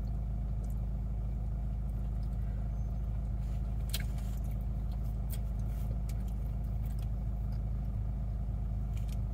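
Car engine idling, heard inside the cabin as a steady low hum, with a few faint clicks.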